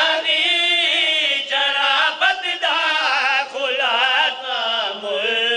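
A man chanting devotional verse of a qasida in a long, melodic, wavering voice, phrase after phrase with short breaks for breath.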